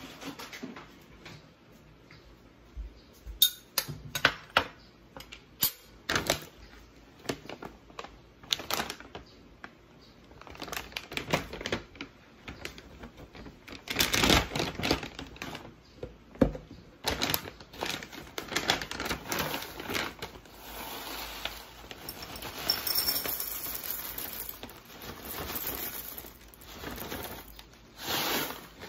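Kitchenware and packages set down on a table with sharp knocks and clinks, and a plastic bag of granola rustling and crinkling. Later, granola clusters pour into a ceramic bowl with a dry rattle.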